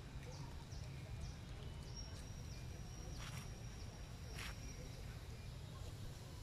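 Faint outdoor ambience: a steady low rumble under short, high chirps repeating about three times a second, with a thin high whistling tone in the middle and two brief hissy noises about three and four and a half seconds in.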